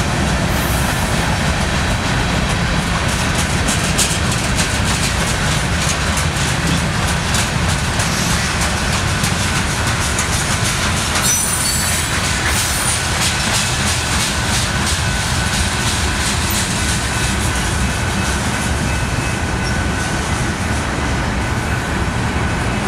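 Freight cars of a mixed freight train rolling past: a steady heavy rumble of steel wheels on rail with rapid clicking as the wheels cross rail joints, and a faint high wheel squeal.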